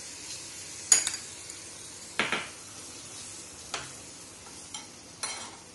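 Hot honey sizzling in a small metal ladle as chopped dry fruits are stirred in, with a steady faint hiss. A metal spoon clinks sharply about four times against the ladle and the bowl, the loudest about a second in.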